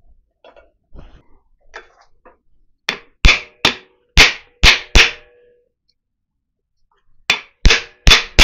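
Hammer blows on a wooden block held against a cast iron pulley, tapping the pulley onto an electric motor's shaft. About six sharp strikes in quick succession, a pause of about two seconds, then four more, some with a brief metallic ring.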